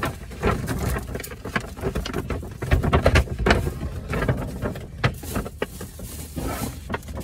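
A stiff paper gift bag being handled, rustling and crinkling with many irregular clicks, and a few heavier bumps about three seconds in.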